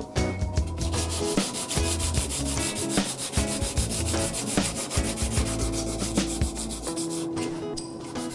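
Wood being hand-sanded with quick, even back-and-forth strokes, the abrasive rubbing on the wooden part.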